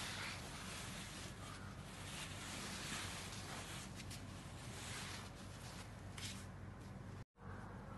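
Soft silk saree fabric rustling as hands lift and turn its folds, over a steady low hum; the sound drops out for an instant about seven seconds in.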